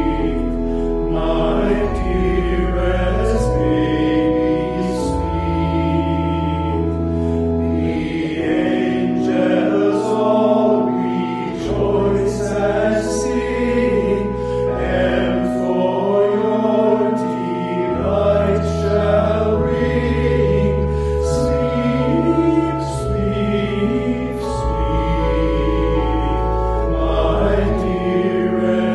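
A small group of men's voices singing in harmony, holding long notes in several parts.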